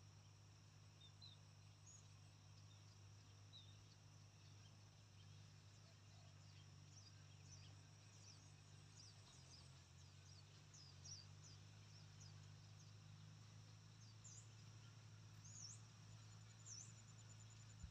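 Near silence: faint open-air ambience with small birds giving short high chirps now and then, more often in the second half, over a low steady hum.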